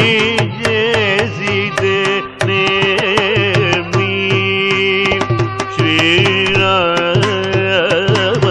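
Carnatic classical music in raga Todi: a melodic line with sliding, oscillating ornaments over a steady drone, with frequent drum strokes.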